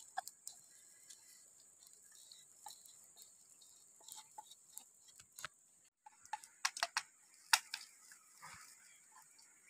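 Wooden pestle tapping and scraping in a mortar of pounded chili paste as it is scooped out: scattered light clicks, with a quick run of sharper knocks about two thirds of the way in.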